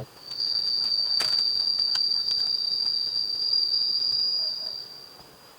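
An insect's steady, high-pitched call in the forest, held for about five seconds and fading out near the end, with a sharp click about a second in.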